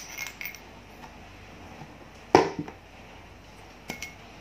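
Small metal parts of a hydraulic safety relief valve clicking and clinking as it is taken apart by hand, with one sharp metallic knock about halfway through as a steel part is set down on the table.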